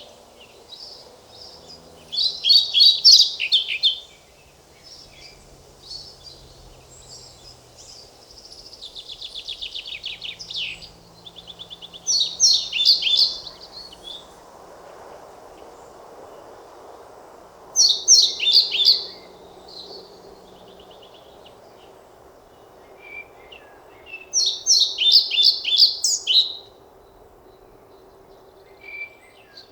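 European pied flycatcher singing: four loud, high song phrases of rapid notes, each about two seconds long and several seconds apart, with a softer run of quick notes between the first two.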